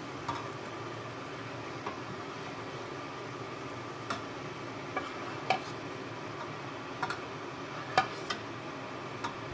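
Kitchen utensils clinking and knocking against dishes and bowls, about nine scattered strikes with the loudest about eight seconds in, over a steady background noise.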